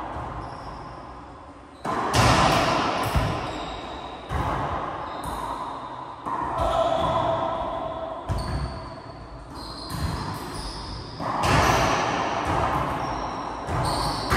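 A racquetball rally: the hollow rubber ball cracking off racquets and the court walls every second or two, each hit ringing on in the enclosed court's echo, with a few short squeaks between hits.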